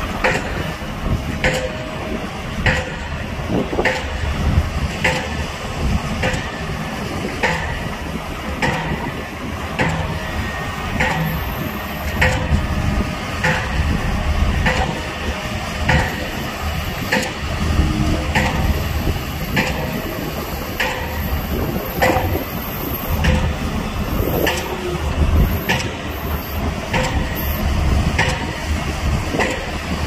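Heavy construction machinery running, a steady low diesel rumble with a sharp clank repeating evenly about once a second.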